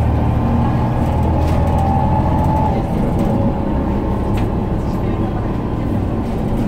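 Cabin noise of an Irisbus Citelis 18 articulated diesel bus with a Voith automatic gearbox under way: a steady low engine drone with a faint whine above it, easing off about two and a half seconds in.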